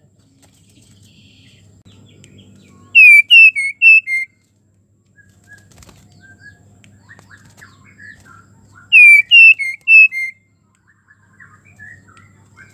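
Female white-rumped shama in breeding condition calling. Two loud bursts of five or six short whistled notes, each dropping in pitch, come about six seconds apart, with faint soft chips between them.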